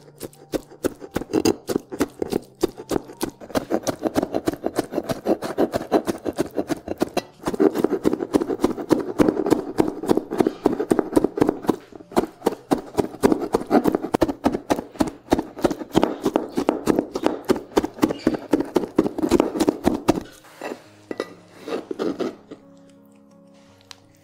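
Kitchen knife finely chopping capers on a cutting board: rapid knocks of the blade on the board, several a second, with a few short pauses, stopping a couple of seconds before the end. Faint background music is heard once the chopping stops.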